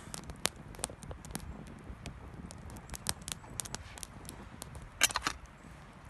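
Wood campfire of thin sticks crackling, with irregular sharp pops and snaps and a louder flurry of snaps about five seconds in.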